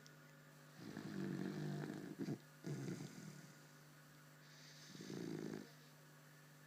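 Snoring in deep sleep: a long snore about a second in, then two short snorting breaths around two and three seconds, and a softer breath near five seconds, over a steady low hum.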